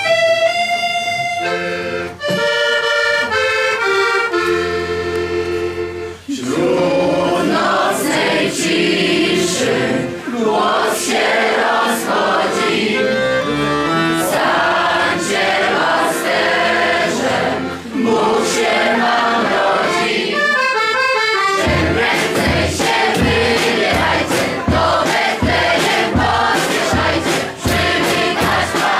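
Accordion playing a slow tune, joined after about six seconds by voices singing along and a steady beat; a deeper pulse joins about two-thirds of the way through.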